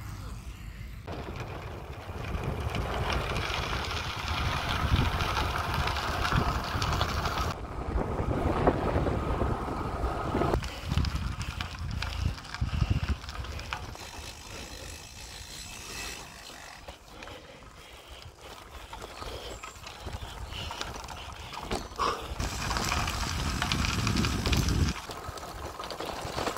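Road bike being ridden: wind buffeting the microphone over the rumble of the tyres, the sound changing abruptly at several points, with a stretch over cobblestones near the end.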